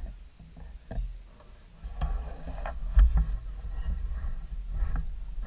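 Wind rumbling on the microphone, growing stronger about two seconds in, with faint shouts from players on the field.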